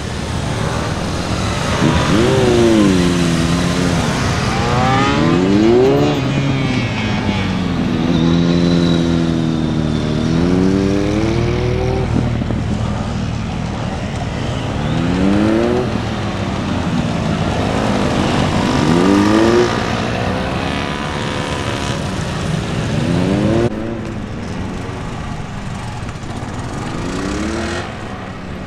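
A Kawasaki KLX125's small single-cylinder engine revving up and dropping back over and over as the bike accelerates and slows between tight turns. About 24 s in the sound cuts to a quieter, steadier small engine, a Honda MSX125's 125 cc single.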